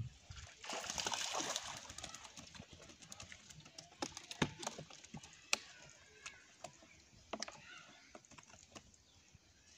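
A hooked walking catfish splashing about a second in as it is pulled from the water, then a string of irregular clicks and knocks as the fish flaps against a plastic crate and is unhooked.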